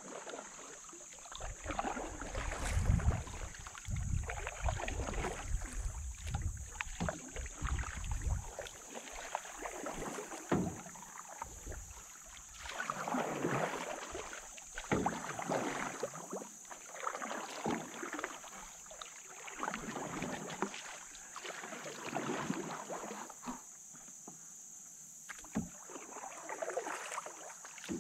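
Canoe paddle strokes in calm river water: a swish and trickle of water with each stroke, coming every second or two. A low rumble, like wind on the microphone, sits under the first several seconds.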